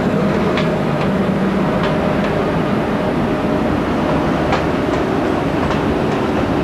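Croatian electric locomotive hauling passenger coaches slowly past: a steady train rumble with scattered clicks of wheels over the rail joints.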